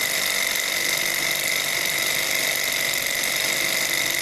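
Small glass-and-metal Stirling engine running steadily while it drives a little generator under load, with a constant high whine over its busy mechanical running noise.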